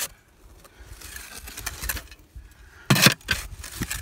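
Shovel working a dry sand-and-cement mix in a steel wheelbarrow: a grainy scraping through the first couple of seconds, then a sharp clank of the blade against the tub about three seconds in, with a few lighter knocks after it.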